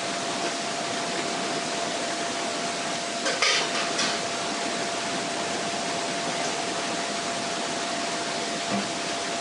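Steady background hiss with a faint steady whine, broken about three and a half seconds in by two short metallic clicks as two cut-off aluminium soda-can bottoms are pressed and twisted against each other; the halves won't slide together because air trapped inside stops them.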